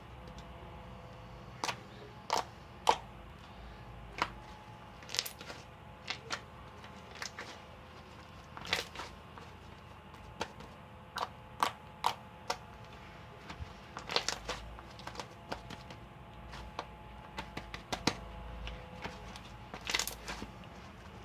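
Fluffy slime made with shaving foam being pressed and stretched by hand, giving irregular sharp clicks and pops, sometimes in quick little clusters.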